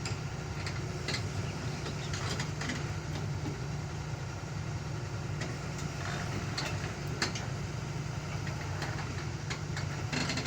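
Excavator's diesel engine running steadily at low speed, with a few short knocks scattered through it.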